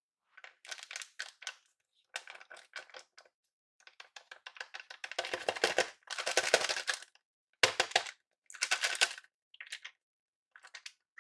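Stiff hand-drawn paper blind bag rustling and crinkling under the fingers as it is handled, in a run of short crackly bursts with silent gaps between them. The loudest stretch comes a little past the middle.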